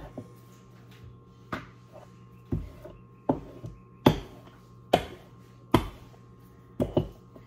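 Wooden rolling pin knocking against the countertop as flatbread dough is rolled out: about eight sharp knocks, roughly one a second.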